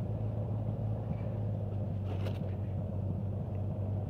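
Honda Gold Wing GL1500's flat-six engine running steadily as the motorcycle rides along, a constant low drone with a little road and wind noise.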